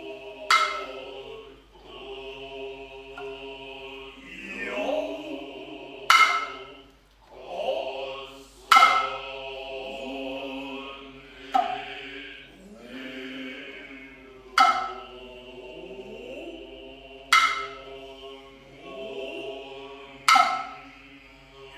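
Noh music: the jiutai chorus chanting in unison, drawn-out rising kakegoe calls, and seven sharp tsuzumi hand-drum strikes about three seconds apart, with a high breathy noh flute line above.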